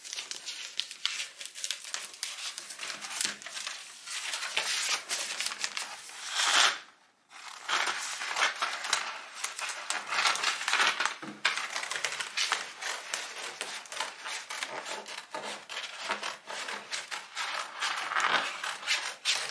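Large paper rub-on transfer sheets crinkling and rustling as they are unrolled and handled, with a short break about seven seconds in. Near the end the sheet is cut with scissors.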